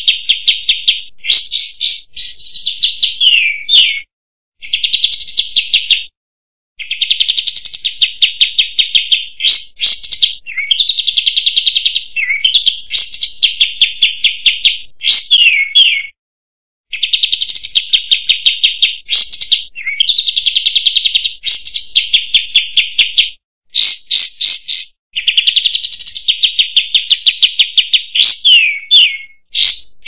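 Olive-winged bulbul (kapas tembak) singing: high-pitched, rapid chattering trills in phrases of one to three seconds, several ending in a quick falling slur, broken by short silent gaps.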